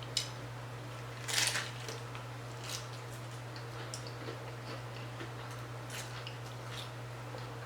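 Close-miked eating: a short crunch of a bite into a hard taco shell about a second in, then chewing with small wet mouth clicks, over a steady low hum.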